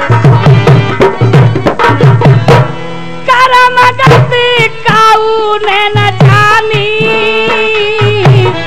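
Dhola folk music interlude. A hand drum plays quick, even strokes, then from about three seconds in a melody of long held notes that slide in pitch runs over sparser drumming.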